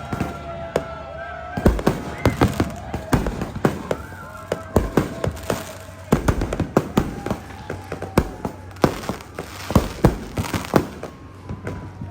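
Fireworks going off in quick, irregular succession: many sharp bangs and cracks, some near and loud, some distant, with thin drawn-out whistling tones running beneath them.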